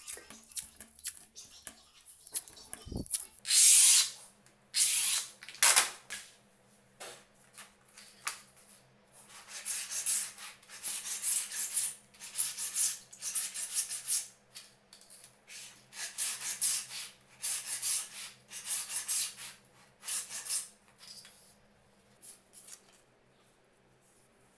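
A hand laminate cutter drawn along a steel straightedge in repeated short scraping strokes, about one a second, scoring a laminate sheet. Before that come a thump and two loud, harsh rasping strokes.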